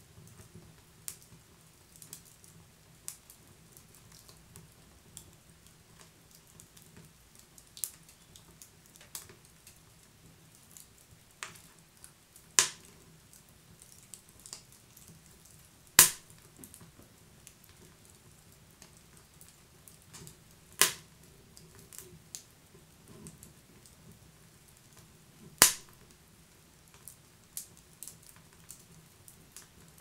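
Wood fire crackling: scattered small snaps and ticks over a faint, steady low rustle, with four loud, sharp pops a few seconds apart, starting about a third of the way in.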